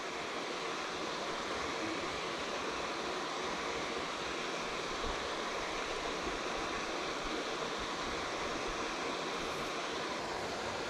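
Steady rush of running water, an even hiss that holds unchanged throughout.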